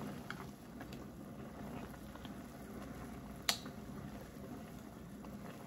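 Instant ramen noodles boiling in an electric hot pot, a steady bubbling as chopsticks stir them, with one sharp click about three and a half seconds in.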